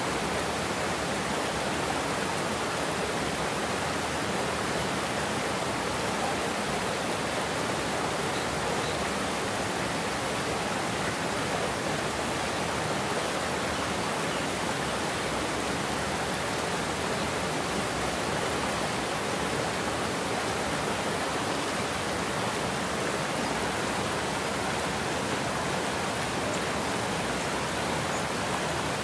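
Water pouring over a low weir and churning in the whitewater below: a steady rushing.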